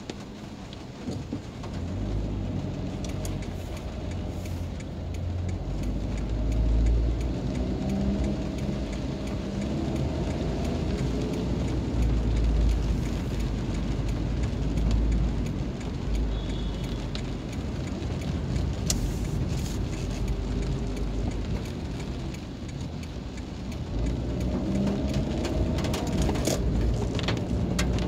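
Car driving in the rain, heard from inside the cabin: a low engine and road rumble with the hiss of tyres on wet asphalt, and scattered ticks of raindrops on the glass. The rumble grows louder about two seconds in, eases off a little past the middle, then rises again near the end.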